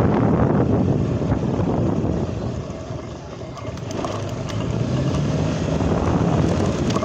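Motor vehicle driving along a street: engine running steadily with wind buffeting the microphone, dipping briefly in level midway.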